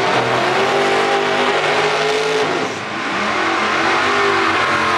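Big-block V8 drag-car engines revving high during a burnout. The revs are held, drop a little under three seconds in, then climb and hold again.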